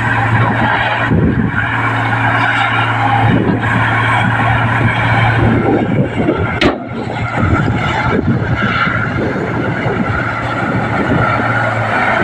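Komatsu D58P bulldozer's diesel engine running steadily under load while pushing dirt, with a constant low hum and grinding, scraping noise over it. A single sharp knock a little past halfway through.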